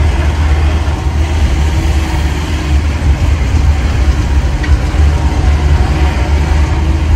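Car engine drone and road rumble heard from inside the cabin as the car drives uphill on a steep road: a steady, loud low rumble with no breaks.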